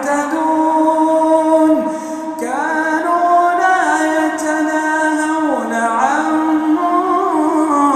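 A man's voice reciting the Quran in melodic tajweed style, drawing out long held notes that step up and down in pitch.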